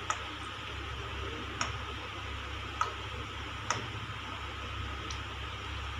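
Steel pressure cooker with sesame oil in it, heating on a gas burner: a steady hiss with five sharp, isolated ticks spread about a second apart.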